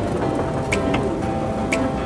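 Background music: sustained tones with a sharp percussive tick about once a second.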